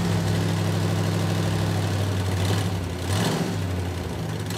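Vehicle engine sound effect laid over the toy camper van driving: a steady, low engine hum, with a brief shift in the engine note about three seconds in.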